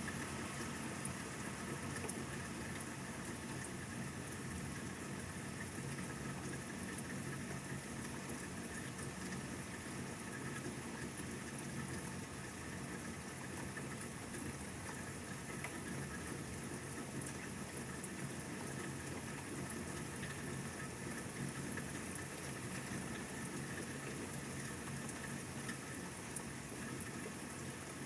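Steady rain falling, an even hiss with fine drop ticks, over a steady low hum.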